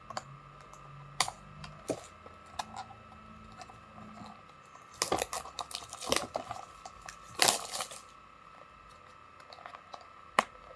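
Handling a power bank and its box and packaging: scattered clicks and taps, with short louder rustling bursts about five and seven and a half seconds in, over a faint steady hum.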